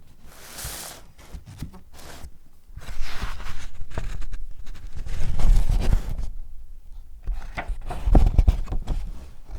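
Paper or cardboard being handled and rustled, with several soft, heavier bumps about five and eight seconds in.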